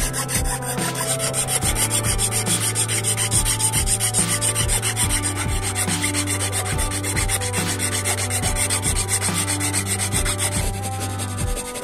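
A flat metal file rasping back and forth in a slot cut into a wooden slingshot stock, in quick, even strokes.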